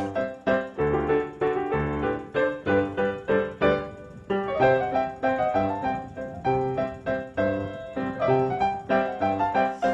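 Piano music: a steady stream of notes, about two a second, with bass notes under a melody.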